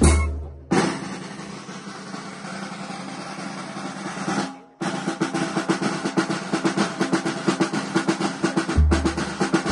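Snare drums of a Cajamarca banda típica playing a drum roll. It breaks off sharply about four and a half seconds in, then resumes as rapid snare strokes. Near the end a deep bass-drum beat comes back in.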